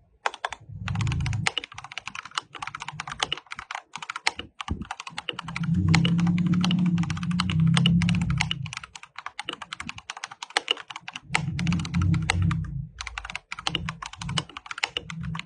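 Fast, continuous typing on an Akko 3098B mechanical keyboard, a dense run of key clacks with a couple of brief pauses. A low hum comes in under the typing twice, in the middle and again near twelve seconds.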